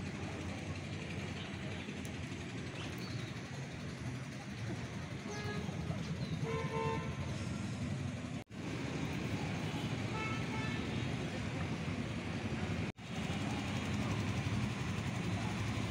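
Vehicle traffic: a steady low engine rumble with a car horn honking briefly about six to seven seconds in, and fainter horn toots before and after it. The sound cuts out for an instant twice.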